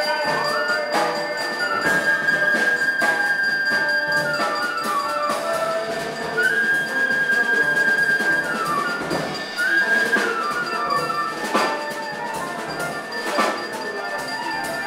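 Small jazz group playing live: a flute holds long high notes and plays quick runs over piano and drum kit, with several cymbal crashes.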